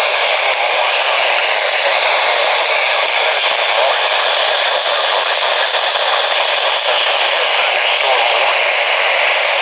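NOAA weather radio receiver putting out steady static hiss through its small speaker, with no broadcast audio coming through.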